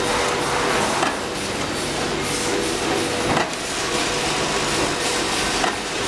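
Semi-automatic crimping machine for 3-pin plug inserts running with a steady hum over a noisy mechanical background, with a sharp click three times, a little over two seconds apart.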